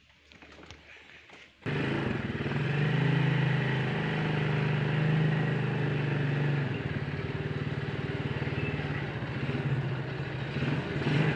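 ATV engine running steadily, cutting in suddenly about two seconds in after a quiet start.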